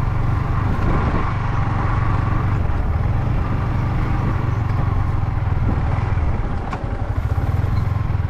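Yamaha MT-15's single-cylinder engine running steadily under way on a rough road, with a brief dip and a single click about seven seconds in.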